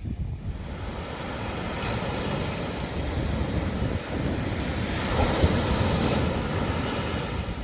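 Sea waves washing onto a beach, one wave swelling louder about five seconds in, with wind rumbling on the microphone.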